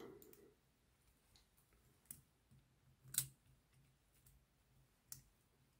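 Near silence broken by three small, sharp clicks, the middle one the loudest, as fingers handle the chassis of a Hornby Black 5 OO gauge model locomotive while its pickup screws are being taken out.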